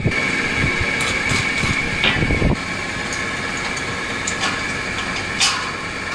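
Steady machine hum with a high whine, with rumbling handling noise for the first couple of seconds and a few sharp metal clicks as hands work bolts on a square-tube steel frame.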